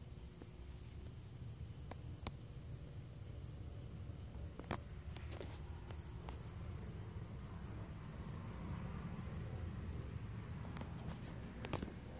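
Crickets trilling steadily on one high note, with a few sharp clicks and knocks scattered through, the loudest cluster near the end.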